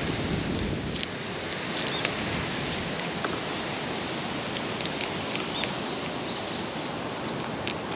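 A cat eating dry kibble from a plastic bowl, with scattered crisp crunches over a steady outdoor hiss. A quick series of short high bird chirps comes in near the end.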